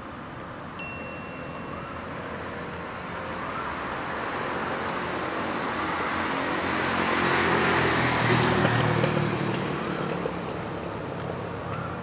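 A motor vehicle passes on the road, its engine and tyre noise swelling to a peak about eight seconds in and then fading. A single metallic ding rings out about a second in, and a bird's short rising call repeats every few seconds.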